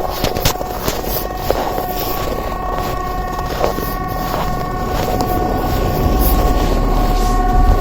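CA 370 outdoor warning siren sounding a continuous steady tone without rising or falling, matching the long unbroken all-clear ('faran över') signal of Sweden's siren test. Wind rumbles and crackles on the microphone underneath.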